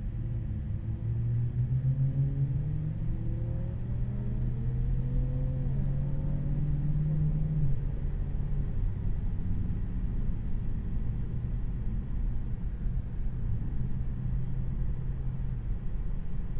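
Tesla Model 3 RWD heard from inside the cabin: steady low road and tyre rumble, with the electric drive motor's whine rising in pitch as the car accelerates for about eight seconds, then dropping away as it eases off.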